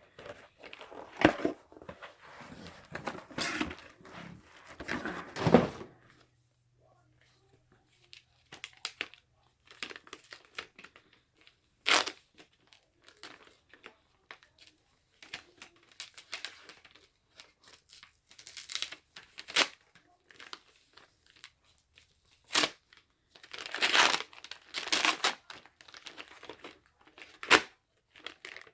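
Mail packaging being torn open and crinkled by hand, in irregular bursts of rustling with a brief pause early on, plus a few sharp snaps.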